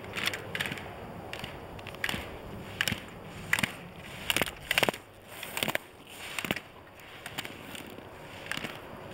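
Slalom skis carving and scraping on packed snow, one crunching burst about every second as the skier turns through the gates. The bursts are loudest around the middle, and a few sharp knocks stand out among them.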